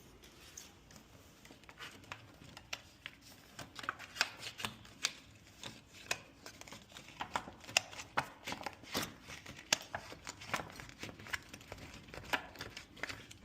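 A plastic card worked between a door and its frame to slip the latch: a run of small, irregular clicks and scrapes, sparse at first and busier from about four seconds in.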